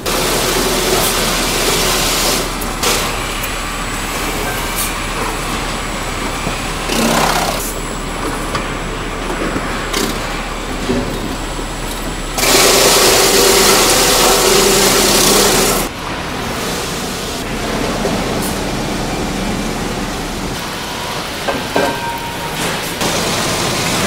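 Industrial sawmill log-processing machinery running: the clatter and rumble of spiked feed rollers and chain conveyors moving logs and timber. A louder stretch of about three seconds comes in the middle, and a low steady hum stops a few seconds before the end.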